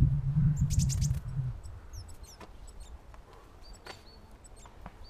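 Small birds chirping: short, high chirps scattered throughout. A low rumble is the loudest sound in the first second and a half, then fades out.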